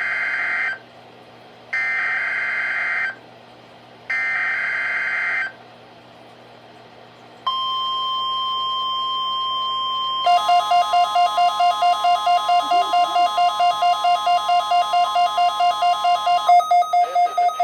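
NOAA Weather Radio Required Weekly Test alert tones. The end of one SAME header data burst is followed by two more harsh digital data bursts, each over a second long. Then comes the steady 1050 Hz warning alarm tone, joined partway through by a rapidly pulsing beep of about four a second from a tone-activated weather radio receiver, which keeps pulsing after the long tone cuts off near the end.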